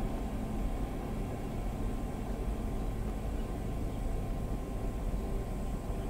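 Steady low rumble with a faint hiss, unchanging throughout.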